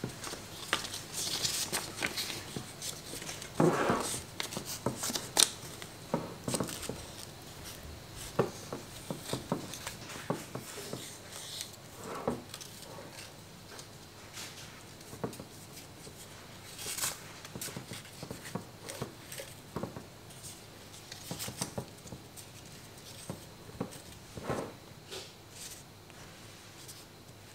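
Hands handling paper and string while a torn-off calendar page is tied onto a jar: irregular small clicks and rustles, busiest in the first few seconds and thinning out later.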